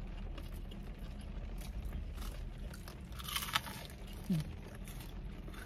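A crisp battered onion ring bitten with a loud crunch about three seconds in, with softer crunchy chewing around it.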